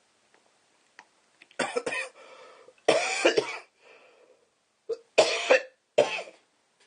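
A man coughing in several hard fits, throat irritated by the chili heat of extremely spicy instant noodles.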